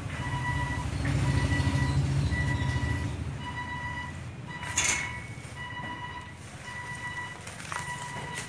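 A vehicle's reversing alarm beeping steadily, about once a second, over the low rumble of an engine that swells between about one and three seconds in. A single sharp rustling knock about five seconds in.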